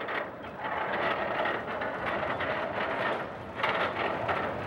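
Large sliding shop door rolling open sideways on its track: a steady rattling noise, louder for a moment about three and a half seconds in.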